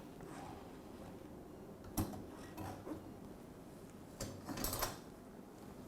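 Dishwasher rack rail being worked off its clips: a sharp click about two seconds in, a couple of lighter clicks, then a short sliding rattle of the rail near the end.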